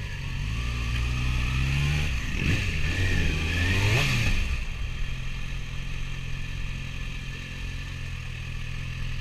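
Kawasaki ZX-6R's 600cc inline-four running at low speed, heard on board. About two seconds in it gets louder, with the pitch rising and falling, then it settles back to a steady low running sound from about five seconds on.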